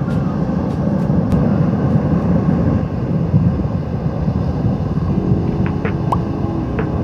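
Strong wind buffeting the microphone on an open beach: a loud, steady rumble that goes on unbroken.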